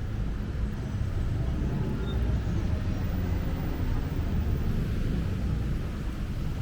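Steady city street traffic: a continuous low rumble of passing vehicles.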